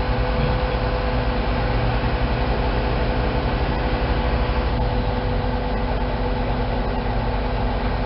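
Mobile crane's diesel engine running steadily with a low throb, a steady whine above it.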